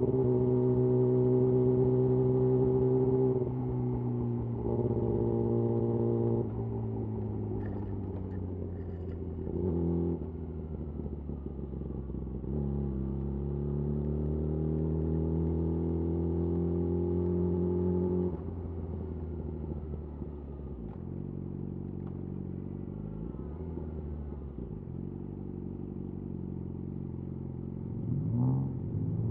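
Yamaha YZF R6's inline-four engine through a de-catted Akrapovic slip-on exhaust, running at steady revs with a couple of short breaks. It then pulls up in pitch for several seconds and drops back to a lower, quieter note, with a brief rising rev near the end.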